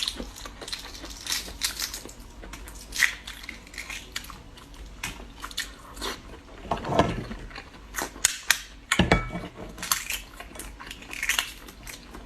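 Close-miked chewing and biting of food, with many short sharp clicks and a few louder, longer crunching or mouth noises.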